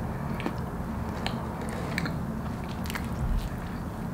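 Close-up biting and chewing of a Little Debbie honey bun, with short wet mouth clicks about once a second over a steady low hum.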